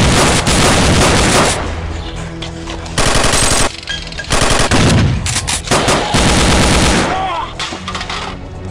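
Rapid machine-gun fire in three long bursts: one at the start, a short one about three seconds in, and a longer, broken one from about four to seven seconds, over background music.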